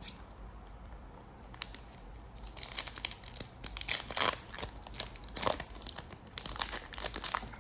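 Trading-card pack wrapper crinkling and tearing open, a dense irregular crackle that starts about two and a half seconds in after a quiet opening.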